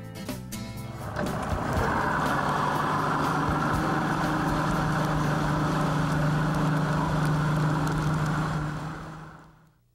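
Ranger bass boat running fast on its outboard motor: a steady engine drone under a rushing noise, starting about a second in and fading out near the end.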